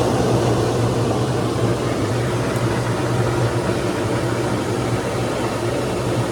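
A machine running steadily: a low hum under an even rushing noise.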